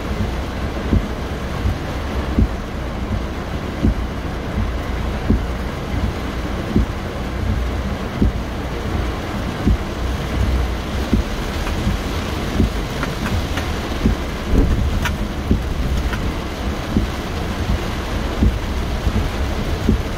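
Heavy rain drumming on a car's roof and windshield, heard from inside the cabin, with the windshield wipers sweeping and a low rumble from the car underneath.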